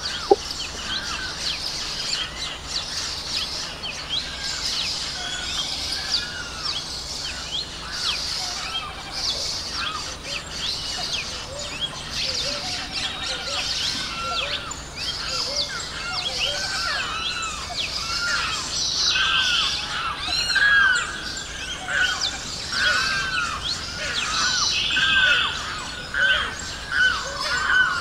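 Mixed chorus of many wetland birds: dense overlapping chirps and trills, with one kind of call repeated over and over as short arching notes, growing a little louder in the second half. A single sharp click sounds at the very start.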